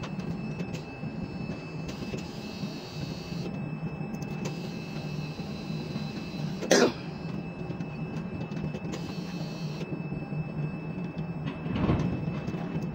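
Steady low hum of a quay crane's machinery, heard from the operator's cab as the spreader works over the containers. A short, sharp, loud noise comes about seven seconds in, and a brief louder rumble near the end.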